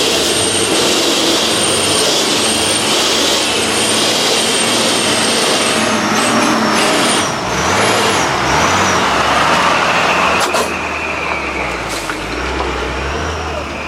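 Heavy truck driving past close by, its engine running under a continuous loud hiss. The engine note shifts about seven to eight seconds in, and the sound eases a little near the end.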